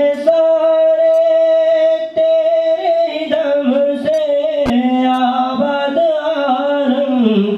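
A young man's solo voice chanting a devotional song without accompaniment: one long held note for about three seconds, then a line that wavers up and down in pitch.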